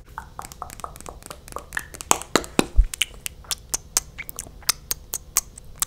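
Close-up wet mouth sounds right at the microphone: sticky, lip-glossed lips smacking and parting in quick, irregular clicks, several a second.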